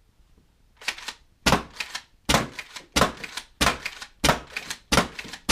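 Nerf Lynx bullpup blaster converted to high-pressure air firing darts in quick succession: about seven sharp shots roughly two-thirds of a second apart, with quieter clacks of the pump being racked between them.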